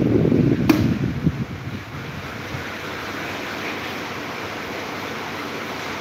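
Electric pedestal fan running with a steady whoosh of moving air. For the first second and a half its airflow buffets the microphone with a low rumble, with one sharp click under a second in, before it settles to an even hiss.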